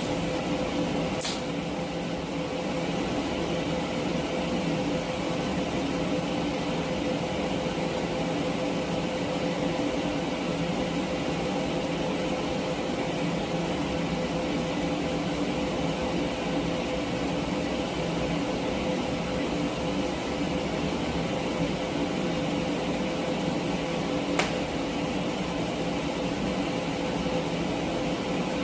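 TIG welding arc running a bead: a steady electrical buzz and hum with a faint hiss, with a sharp tick about a second in and another near the end.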